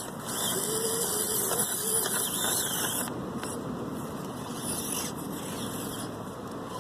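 Axial SCX24 micro RC crawler's electric motor and gears whirring as it tries to climb a steep slope, louder for the first three seconds and then lower.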